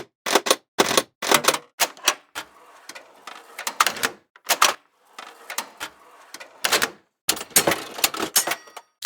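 Mechanical gear sound effects: a run of sharp clicks and clunks, about two a second, with a quieter steady whirring between some of them. A few short silent gaps separate one effect from the next.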